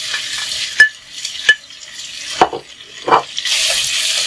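Sliced chicken sausage sizzling in hot oil in a non-stick pot as it is tipped in and stirred with a wooden spatula, with four sharp knocks against the pot over the first three seconds. The sizzle grows louder about three and a half seconds in.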